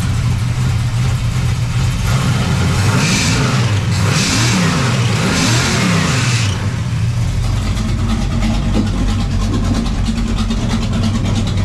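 1969 Dodge Charger's carbureted engine idling, then revved by hand at the four-barrel carburetor's throttle, about three quick revs that rise and fall between two and seven seconds in, before it settles back to a steady idle. The owner suspects an exhaust leak.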